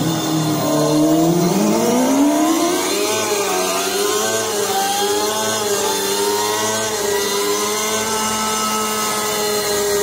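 Emulated engine sound of a four-stroke, four-cylinder 600 cc motorcycle engine, produced by the McFly system of an electric motorcycle. The pitch drops briefly at the start, climbs steadily for about three seconds as the revs rise, wavers, then holds steady.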